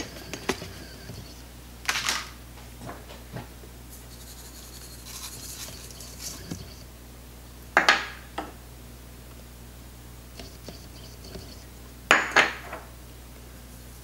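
Small glass prep bowls clinking and knocking as seasonings are tipped onto pork chunks in a stainless steel Instant Pot inner pot. Three louder clatters come about two, eight and twelve seconds in, with lighter ticks between.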